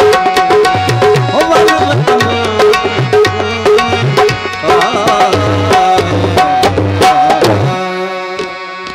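Instrumental folk music on dholak and harmonium. Quick hand-drum strokes, with the bass head sliding in pitch, play under a steady harmonium melody. About seven and a half seconds in, the drumming stops and a final held chord rings out and fades.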